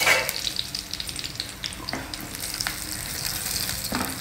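Hot sesame oil sizzling and crackling in a stainless steel kadai with a South Indian tempering of mustard seeds, fenugreek seeds, chana dal, dry red chillies, asafoetida and curry leaves. There is a louder burst of sizzle right at the start and scattered sharp crackles throughout. A wooden spatula stirs the pan near the end.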